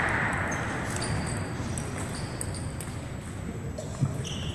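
Echoing sports-hall ambience with scattered sharp clicks of table tennis balls being struck and bouncing on the tables. There is one louder knock about four seconds in.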